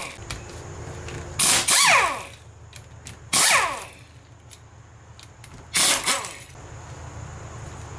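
Power drill with a socket spinning 10 mm bolts out of a transmission valve body cover: three short runs of the motor, each winding down in pitch as the trigger is let go. Light clicks of metal come between the runs.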